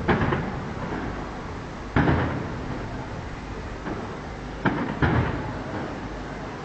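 Aerial firework shells bursting: four loud booms, each fading away after it, the last two in quick succession about five seconds in, with a fainter bang just before them.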